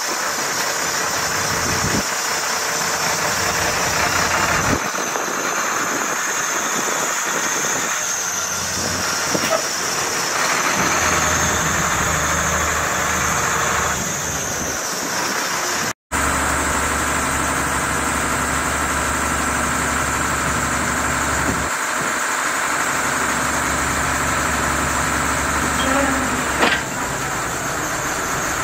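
Ford LNT8000 roll-off truck's engine running steadily, with a high whine coming and going in the first half. After a cut it runs on with steadier low tones while the hydraulic roll-off hoist is raised, and a short clank sounds near the end.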